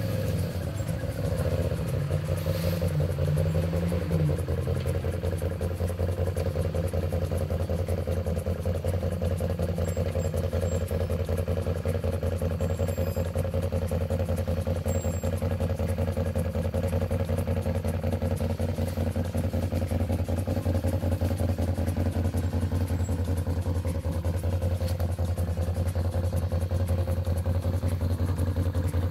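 ATV engine running steadily at low revs as the quad crawls through a tight trial section, with a brief rise in revs about two to four seconds in.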